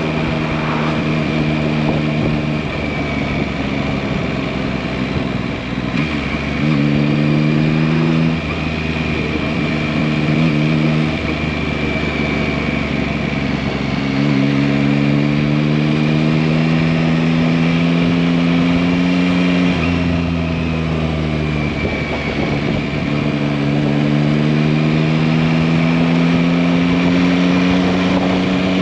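A 2021 Yamaha MT-09's 890 cc three-cylinder engine pulling under way. Its pitch climbs in each gear and breaks at several gear changes, with one longer pull in the middle that eases off before it climbs again.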